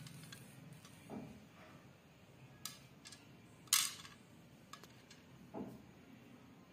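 Light clicks and taps of small plastic and wooden beads against each other and a ceramic plate while beads are threaded onto a string, the sharpest click a little past halfway, with a couple of soft thumps of handling.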